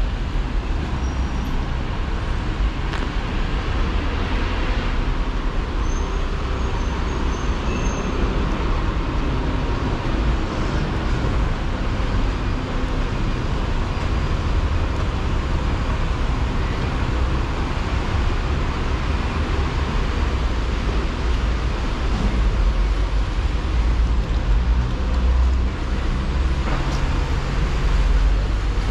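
Steady city street traffic on wet roads: a low rumble with a hiss over it, swelling a little near the end.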